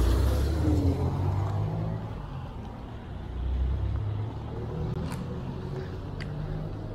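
Car traffic passing on a wet street, engines humming. The hum is loudest in the first second, fades, then a second vehicle swells past about three and a half seconds in. Two faint ticks come near the end.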